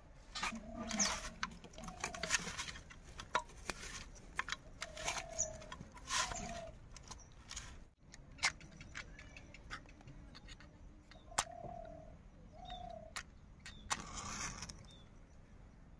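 Dry twigs snapping and crackling as they are broken by hand and packed into a clay stove, with a dove cooing in short paired calls behind. After a break, a few light clicks from handling a matchbox, then about fourteen seconds in a match is struck on the box and flares with a short scratchy hiss.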